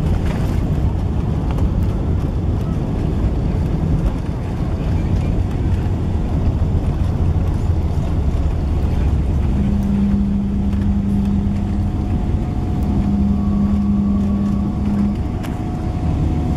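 Cabin noise inside a Boeing 777-300ER rolling out on the runway after touchdown, with its GE90 engines and ground spoilers deployed: a loud, steady low rumble of wheels, airflow and engines. A steady hum joins a little over halfway through and stops about five seconds later.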